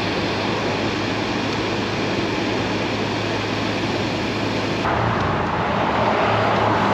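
Steady car-interior noise while stopped in traffic: a low engine hum under an even hiss. About five seconds in the sound shifts to a fuller traffic noise from the road outside.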